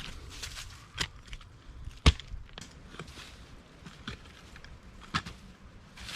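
Survival shovel blade chopping and digging into root-filled soil: a few separate sharp chops with small scrapes and clicks between them, the loudest about two seconds in.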